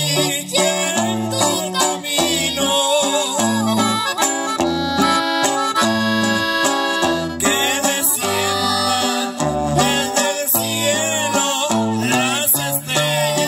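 Live norteño-style band music led by an accordion playing a quick, ornamented melody, over a strummed guitar and a bass line stepping back and forth between low notes.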